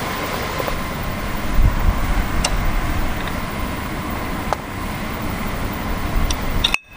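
Steady background noise, like a fan or air handler running, with a few light clicks. The sound drops out briefly near the end.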